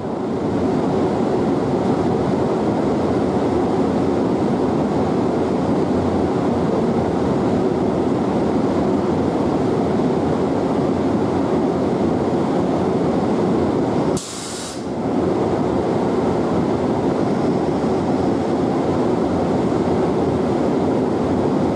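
KTX-Eum electric train running along the station tracks: a steady rumble of wheels on rail. About 14 seconds in there is a short hiss and a brief drop in the sound.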